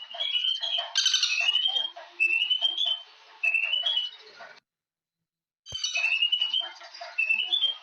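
Birdsong: short phrases of quick notes rising in pitch, repeated about once a second, with other chirps behind them. About two-thirds of the way in the sound drops out completely for about a second, then comes back with a click.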